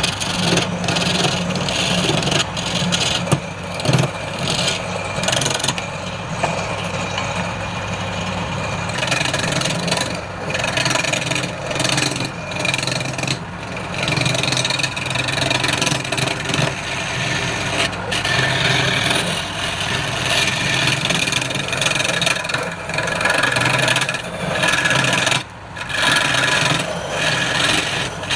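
Wood lathe running with a steady low motor hum while a turning tool works the spinning wood, making a scraping, cutting noise that swells and fades. The cutting noise drops away briefly about 25 seconds in.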